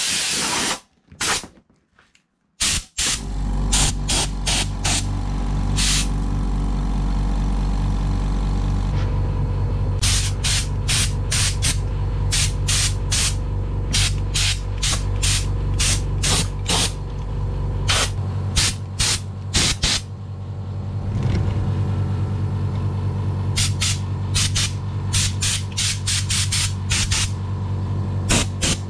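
Hyundai HY5508 oil-free air compressor starting up about three seconds in and then running steadily with a low, even hum. Clusters of short, sharp hisses sound over it.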